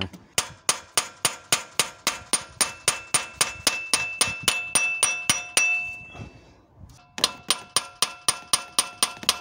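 A hammer tapping at a seized distributor on a Volvo B230F engine to work it loose: quick, even metal-on-metal blows, about three a second, each with a ringing note. The blows pause for about a second around six seconds in, then carry on.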